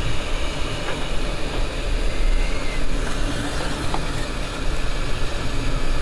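Hot air rework station blowing steadily, a continuous rushing noise with a low rumble, as heat is put on a shorted capacitor to desolder it from the laptop motherboard.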